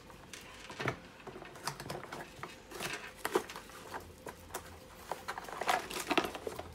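Cardboard box being handled and rummaged, with rustling plastic wrap and irregular light clicks and rattles from loose pens and tweezers inside.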